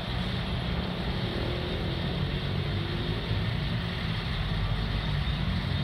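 Steady low rumble of distant engine noise.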